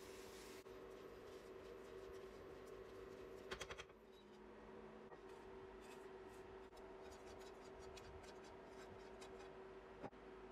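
Faint scratching and scraping of a plastic spoon stirring rice in a nonstick pan and scooping it into a rice-cooker pot, with a short cluster of clicks about three and a half seconds in, over a faint steady hum.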